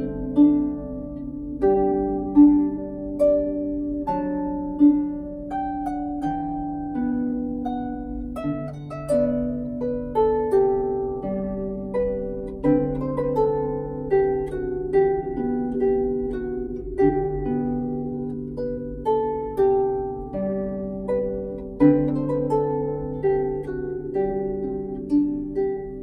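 Salvi Mia 34 silkgut-strung lever harp played with both hands: a slow, simple melody of plucked notes, each ringing and fading, over longer-ringing bass notes.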